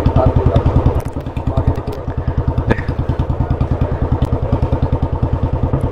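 Single-cylinder motorcycle engine with a loud aftermarket exhaust, running at low revs with a steady, rapid exhaust beat. It drops a little in loudness about a second in.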